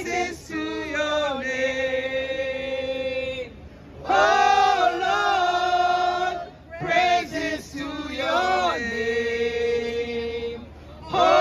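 Street worship singing: a woman sings a worship song into a handheld microphone while men's voices sing along. The notes are long and held, in phrases broken by two short breaths.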